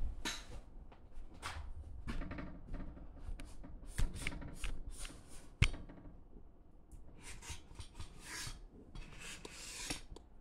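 Irregular rustling and rubbing handling noise, with two sharp knocks about four and five and a half seconds in.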